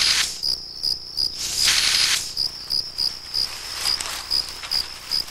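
Crickets chirping steadily, a few chirps a second, under two short bursts of hissing noise, one at the very start and one about two seconds in. The bursts come from a hog-nosed snake imitating a rattlesnake's warning.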